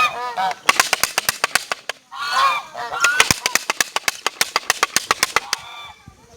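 Geese honking in bursts, alternating with long runs of rapid clacking from a matraca rattle at about ten clacks a second. The geese honk at the start, again about two seconds in, and briefly near the end.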